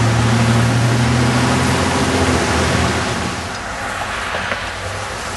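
Car engine and road noise heard from inside the vehicle, a steady low drone. About three seconds in it cuts to a quieter, even outdoor hiss.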